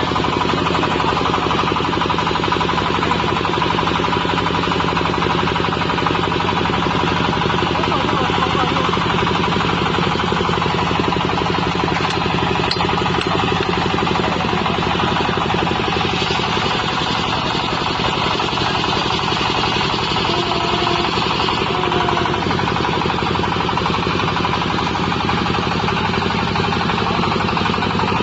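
Diesel engine of a portable water well drilling rig running steadily.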